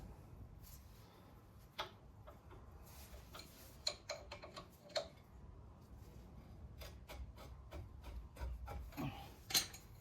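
Scattered light clicks and taps of brake parts and tools being handled, with a quick run of clicks past the middle and the loudest tap near the end.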